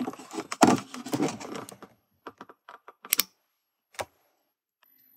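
Hands fitting a VGA dongle's plug into a Sony Vaio P11Z netbook's side port, with the thumb on the loosely refitted keyboard. About two seconds of plastic rubbing and scraping, then a string of light plastic clicks like keyboard keys, the last two sharpest, about a second apart.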